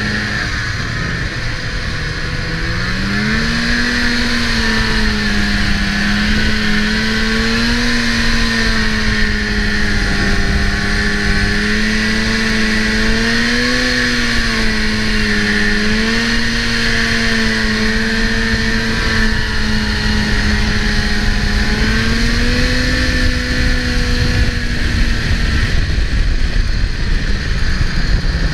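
Snowmobile engine running under throttle on the move. Its note climbs in the first few seconds, then holds at a steady cruise with small rises and dips, and eases off near the end. A heavy low rumble runs underneath.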